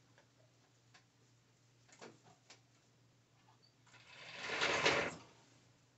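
Sewing machine stitching elastic onto a skirt waistband in one short run about four seconds in, building up and stopping after about a second and a half. A few faint clicks from handling the fabric and machine come before it.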